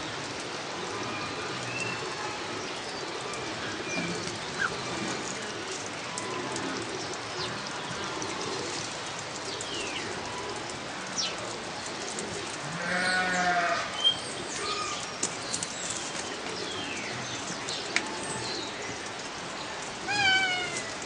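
Kea calling: a wavering, bleat-like call about two-thirds of the way in and another, falling call near the end, over a steady background hiss with faint notes from other birds and a few sharp clicks.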